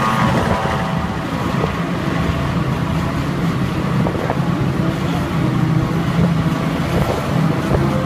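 John Deere self-propelled forage harvesters picking up and chopping grass silage and blowing it into trailers, with John Deere tractors running alongside. Engines and machinery make a steady drone with several steady tones over it.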